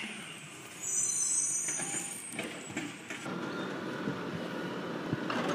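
Garbage truck running at a distance on a street, engine rumbling, with a brief high-pitched squeal about a second in.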